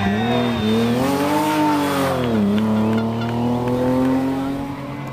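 Rally car engine running hard, its pitch rising over the first second or so, falling away about two seconds in, then holding steady.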